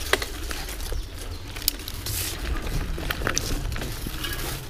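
Mountain bike rolling along a dirt trail: scattered clicks and rattles from the bike over bumps, over a steady low rumble, with a brief rushing swish about two seconds in.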